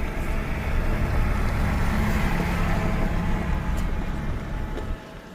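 A motor vehicle's engine running with a steady low rumble, falling away sharply near the end.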